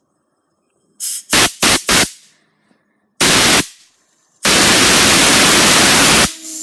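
Air blasts from a compressed-air blow gun driven at a fidget spinner: four short bursts of loud hissing about a second in, another short burst, then a long blast of nearly two seconds near the end.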